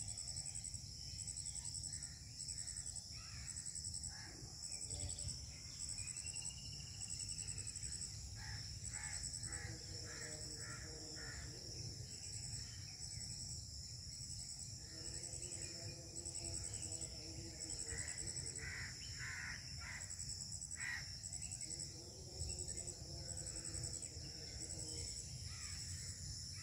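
High-pitched insect chirring, pulsing steadily throughout, with groups of harsh animal calls now and then and a constant low rumble underneath.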